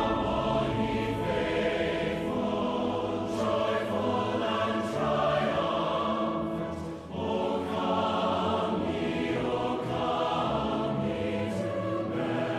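Large choir singing with a full symphony orchestra, with a short lull about halfway through.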